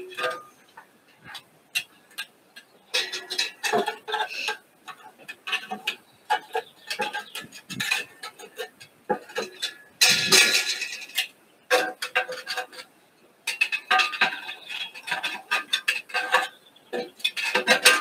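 Metal grill tongs clinking and charcoal briquettes knocking against the grate and the cast-iron Dutch oven as the coals are set in place: a string of light, irregular clicks and clinks, with one louder clatter about ten seconds in.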